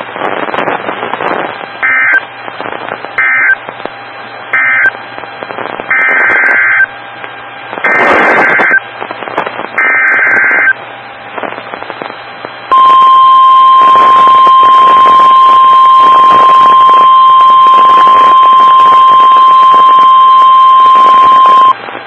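NOAA Weather Radio broadcast: three short SAME data bursts ending the previous message, then three longer SAME header bursts, then the steady 1050 Hz warning alarm tone for about nine seconds over radio hiss. The header and alarm tone announce a new Special Marine Warning.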